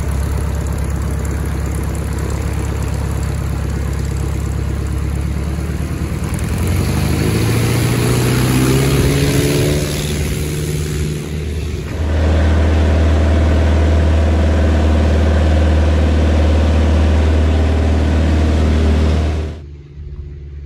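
Light single-engine propeller aircraft's piston engine running as it taxis, its pitch rising, then going to full power at about twelve seconds for the takeoff roll and holding steady. The engine sound drops away abruptly near the end.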